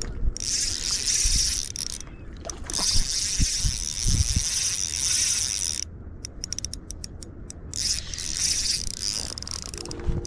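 Spinning reel being cranked to retrieve line: its gears whir in several stretches with short pauses between, and a run of rapid clicks comes near the middle.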